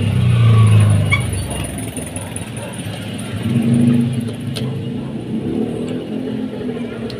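Motor vehicle engine running nearby, its low drone swelling in the first second and again about four seconds in.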